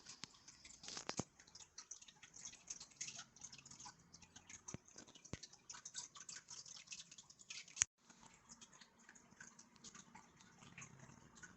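Roccat Pyro mechanical keyboard being typed on: a quick, irregular run of soft key clicks, with one sharper click nearly eight seconds in.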